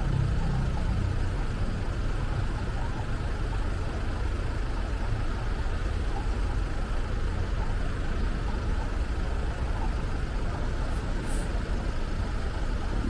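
Steady low road noise of a car driving: engine and tyre rumble. A brief high hiss comes about eleven seconds in.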